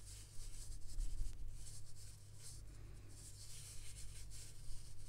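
Metal knitting needles lightly clicking and scraping, with cotton yarn rubbing over them, as knit stitches are worked one after another; faint and uneven.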